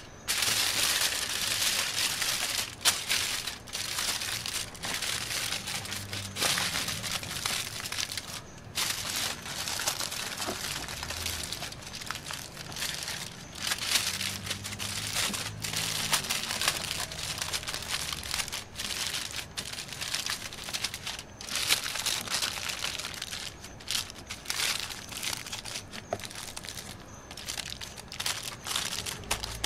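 Aluminium foil crinkling and crumpling as hands fold and crimp it into a sealed packet around a fish, in irregular rustling bursts with brief pauses.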